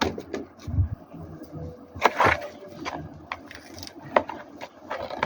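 Scattered light clicks and taps of small objects being handled, with a short rustling scrape about two seconds in and another sharp tap about four seconds in.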